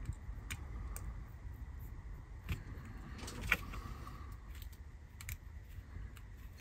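Small clicks and clinks of tiny gears and parts being handled and pushed into a model locomotive's plastic motor bogie, the sharpest click about three and a half seconds in.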